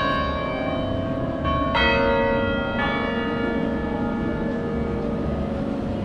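Bells of a 9/11 memorial bell tower ringing: three strikes in the first three seconds, each tone hanging on and slowly fading.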